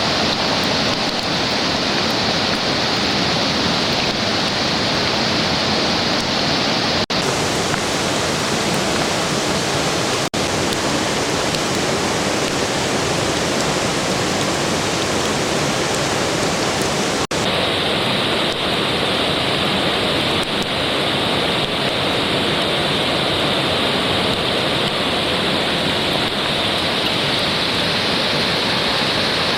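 Rushing mountain river water, a loud steady rush. Its tone changes abruptly about a third of the way in and again past the middle, as if from one spot on the river to another.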